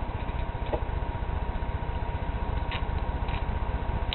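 Steady low hum and hiss of a webcam recording's background noise, with a faint steady high tone and a couple of faint clicks.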